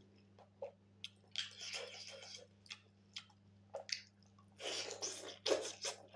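Close-up wet chewing and mouth sounds of someone eating pork and rice: scattered smacking clicks and two longer squelchy stretches, one about a second in and one near the end.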